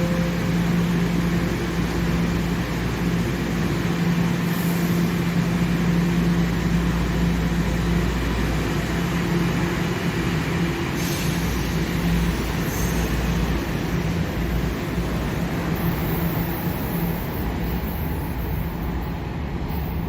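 TTC subway train running through the station: a steady rumble with a constant low hum.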